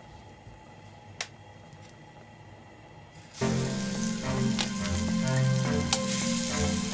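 Raw meatballs laid into hot olive oil in a frying pan start sizzling suddenly about halfway through, a dense crackling sizzle; before that, one faint click.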